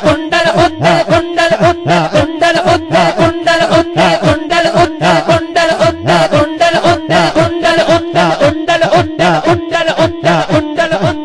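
Devotional music: a drum beat of about three to four strokes a second, each bass stroke falling in pitch, over a steady held note and a wavering melody.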